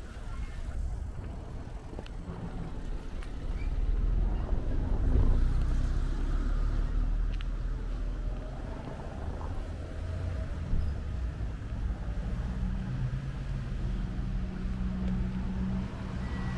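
Road traffic: a motor vehicle's engine rumbling past, louder about four to seven seconds in, then a steady low engine drone from a vehicle on the street.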